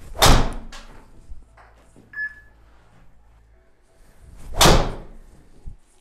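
Two driver shots: the loud crack of a TaylorMade M2 (2017) driver head striking the golf ball, about a third of a second in and again near five seconds, each followed by a lighter knock. A short high beep sounds between them.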